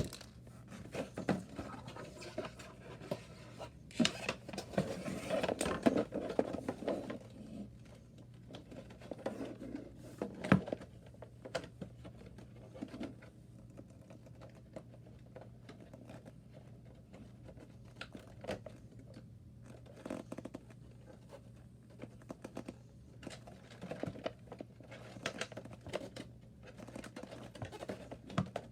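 Headset packaging being handled by hand: irregular scratching, rustling and crinkling with scattered sharp clicks and taps, busiest in the first few seconds.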